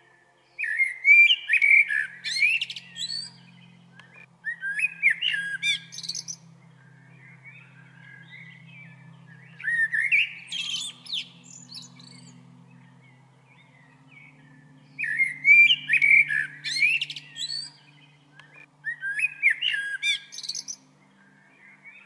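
Male common blackbird singing: five separate warbling phrases with high twittering notes, each lasting two to three seconds, a few seconds apart.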